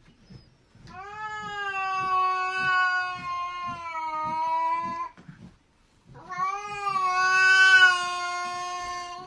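A cat yowling twice, each a long, drawn-out call of about four seconds held at a fairly steady pitch, with a short pause between them.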